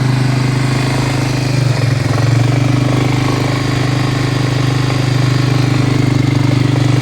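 Quad bike engine idling steadily with the variator (CVT) cover back on over a freshly fitted, greased bearing; it runs smoothly, with no rustling from the variator.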